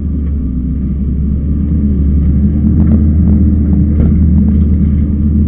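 Kubota skid steer's diesel engine running steadily while it back-drags a rake attachment over loose dirt, with a few faint clicks about three to four seconds in.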